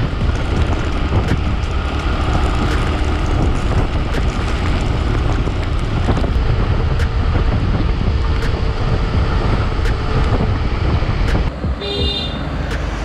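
Motorcycle on the move, with heavy wind noise buffeting the action camera's microphone over a steady low rumble. About eleven and a half seconds in the wind eases and a short high beep sounds.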